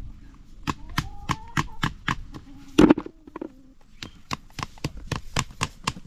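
Steady rhythmic knocking, about four sharp knocks a second, with a voice heard faintly in between and one louder sound about three seconds in.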